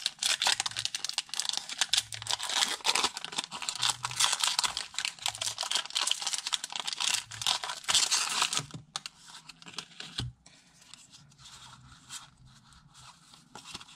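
A Pokémon TCG booster pack's foil wrapper crinkling and tearing as it is opened. About nine seconds in it gives way to softer rustling and light ticks as the cards are taken out and handled.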